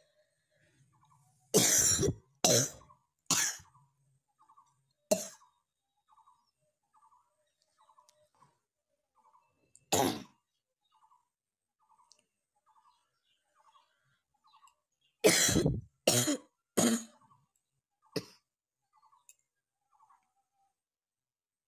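A person coughing deliberately, in short harsh coughs: three in quick succession about two seconds in, single coughs around five and ten seconds, then another run of three and a last lone cough late on.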